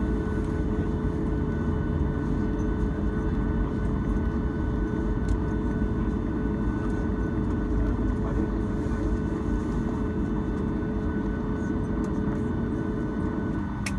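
Boeing 737 cabin noise on the ground after landing: a steady low rumble of the jet engines idling and the air system. A steady hum running through it cuts off near the end.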